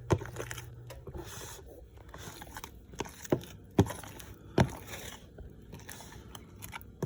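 Strawberry cake batter being stirred by hand in a bowl: the utensil scrapes around the bowl, with a few sharp knocks against its side.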